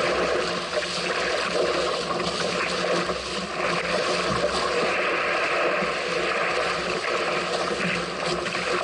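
Steady rush of water along the hull of a small sailing craft moving fast in strong wind, with wind noise on the microphone.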